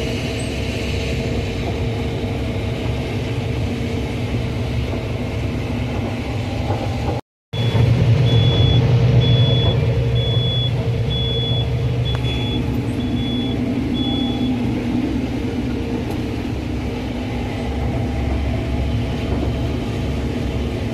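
Combine harvester running steadily while harvesting corn, a low even drone. The sound cuts out for a moment about seven seconds in, then comes back louder, and a series of short high electronic beeps sounds about once a second for some seven seconds.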